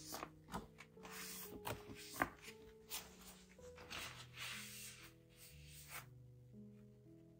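Soft background music with repeated rubbing and rustling as a cloth wipes houseplant leaves, and a few light clicks; the rubbing dies away near the end.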